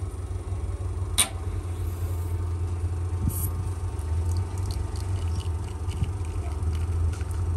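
Espresso machine running during a shot extraction: a steady low pump hum, with a sharp click about a second in and a brief hiss a couple of seconds later.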